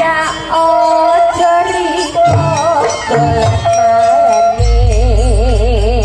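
Traditional East Javanese jaranan accompaniment music: a wavering, ornamented high melody line over drum strokes and jingling percussion. A deep sustained low tone comes in about four and a half seconds in, while the melody wavers in a wide vibrato.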